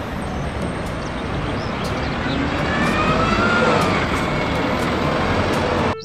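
Single-deck city bus driving past, its engine and road noise swelling to loudest about halfway through, with a faint whine that rises and then falls as it goes by.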